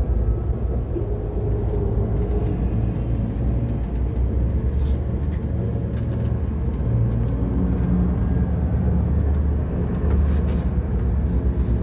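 A bus running, heard from inside the cabin: a steady low rumble of engine and road.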